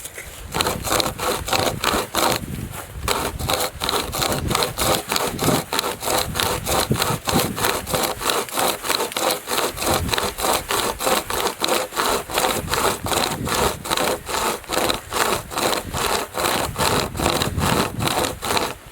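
Wood being sawn by hand with a hand-powered saw, in quick, even back-and-forth strokes, about three a second.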